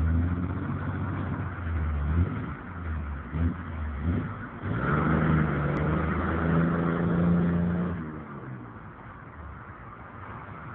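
Car engine idling with a couple of quick throttle blips, then revving up as the car pulls away about halfway through, holding a higher steady note for a few seconds before fading as it drives off.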